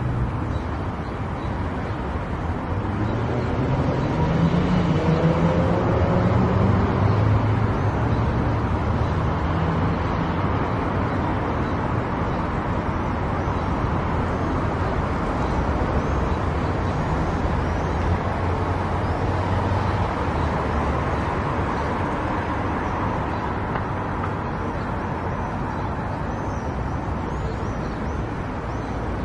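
Car driving along a road: steady tyre and road noise with a low engine hum, swelling for a few seconds as the engine note rises.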